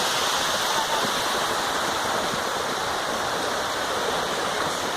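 Rushing water at the head of a waterfall, a steady even noise with no breaks.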